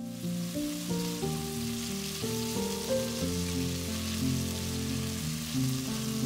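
Cubes of beef searing in hot oil in a pot, a steady sizzle that starts sharply at the cut, over light background music with a stepping melody.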